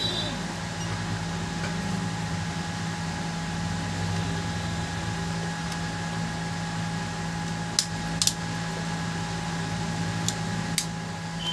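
Plastic parts of a feature phone's housing clicking as the circuit board and frame are pressed together by hand: a few sharp clicks about eight seconds in and two more near the ten-second mark, over a steady machine hum.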